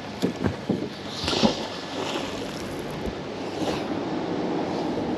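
A sharp click, then a handful of short knocks over the first second and a half, followed by a steady rushing noise of wind and water that grows slightly louder.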